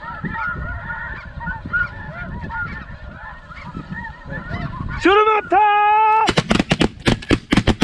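A chorus of snow goose calls, many short high yelps over one another. About five seconds in a man yells, and then several shotguns open fire, a rapid volley of overlapping shots.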